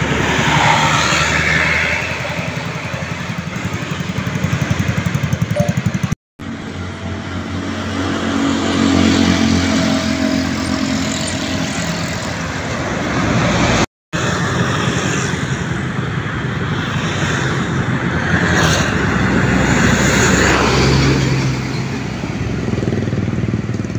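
Road traffic passing on a highway, engines running and tyres on the road, cut off abruptly twice.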